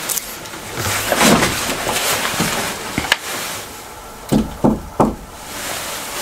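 Three dull knocks in quick succession, about a third of a second apart. They follow a stretch of rustling noise and a single sharp click.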